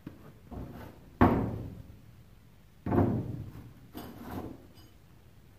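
Cast-iron vise base castings being set down and handled on a wooden workbench: a series of heavy knocks, the loudest about a second in and another near three seconds, with lighter clunks after.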